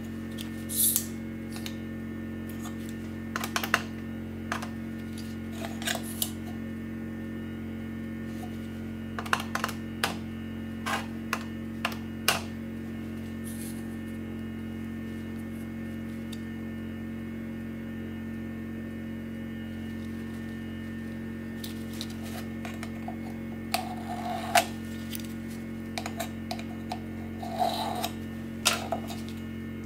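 Scattered light clicks and taps of gloved fingers pressing the keys of a desk calculator and handling a digital caliper, over a steady electrical hum.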